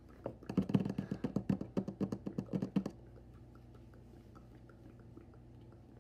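A quick run of taps close to the microphone, about eight a second for some two and a half seconds, as in ASMR tapping, then only faint scattered ticks.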